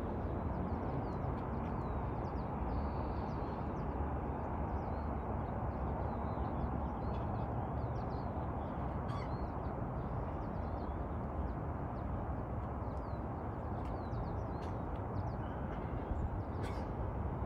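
Birds calling in short chirps over a steady low rumble.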